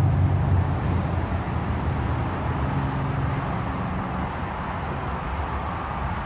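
Low, steady rumble of motor traffic, with one vehicle's engine fading away over the first few seconds.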